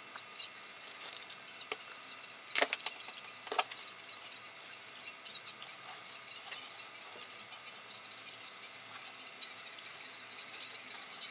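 Faint crinkling and ticking as hands handle a thin aluminium sheet cut from a drink can and a hot glue gun, with two sharp clicks about two and a half and three and a half seconds in.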